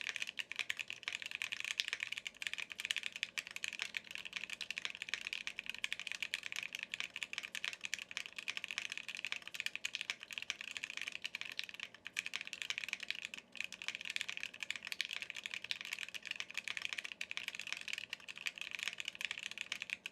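Fast, continuous typing on a Cannonkeys Savage 65 mechanical keyboard with lubed Gateron CJ switches on an FR4 plate and NicePBT keycaps, a dense unbroken stream of key clicks that stops abruptly at the end. The alphas sound muted, while the keys near the spacebar and the enter key sound hollow.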